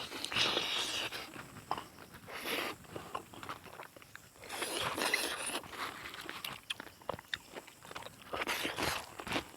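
A person eating: chewing and crunching mouthfuls of food, in several short clusters of crackly bites and clicks.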